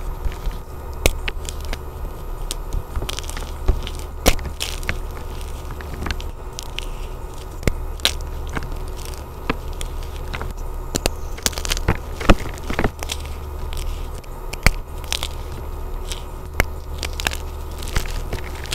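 Blocks of red-glitter gym chalk being crushed and crumbled by hand into a plastic tub: irregular dry crackles and crunches of breaking chalk, over a steady low rumble.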